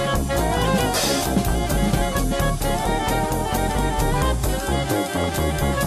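Background music: an upbeat jazz-style band with horns and a drum kit keeping a steady beat.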